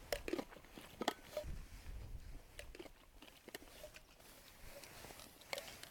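Faint scattered clicks and taps of eating: chopsticks against small metal food tins, with chewing.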